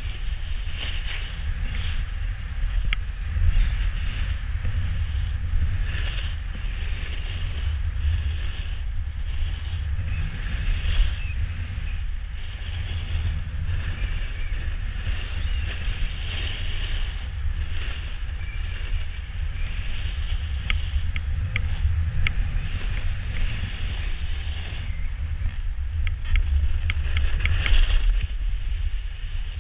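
Wind rumbling on the action camera's microphone as a snowboard rides down a groomed run, its edges scraping and hissing on the snow in surges with each turn. A few small clicks come in the second half.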